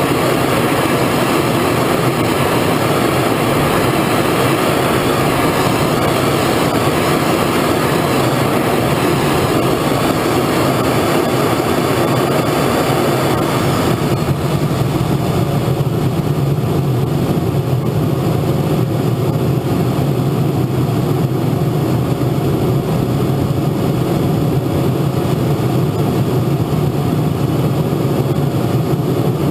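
A radio-control model jet's engine running steadily at idle, heard close up through the airframe-mounted camera. About halfway through the sound changes: the hiss drops away and a deeper, steadier hum remains.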